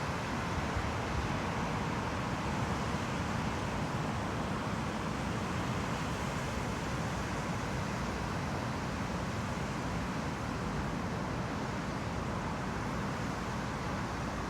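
Steady rushing noise of ocean surf breaking on the beach, big typhoon swell with chest-to-head-high sets.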